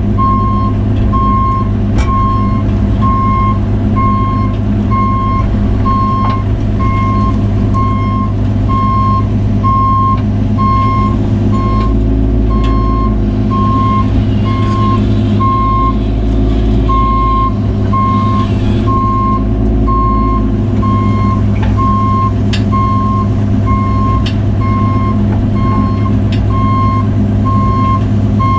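Cat 303 mini excavator's diesel engine running with its travel alarm beeping steadily, about one beep a second, as the machine tracks. There are a few sharp knocks, and the engine note deepens under load for several seconds midway.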